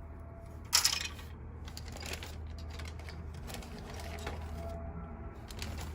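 Plastic model-kit parts trees being handled: light clicks and rattles of plastic, with one louder clatter about a second in, over a steady low hum.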